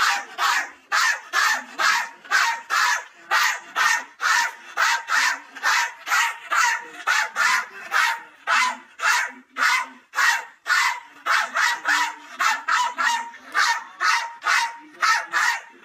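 A man barking like a dog into the microphone: a long run of short, harsh barks, about three a second, without a break.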